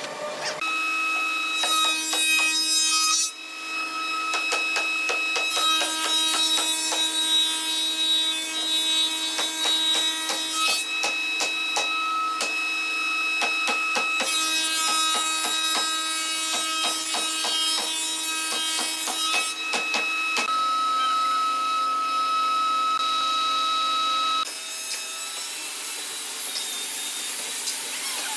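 Woodworking machines working wood panels in turn: a conveyor-fed panel sander, a spindle moulder with a power feeder cutting a board, and a handheld belt sander. Each gives a steady motor whine under the rasp of wood being cut or sanded, with sharp clicks. The sound changes abruptly several times.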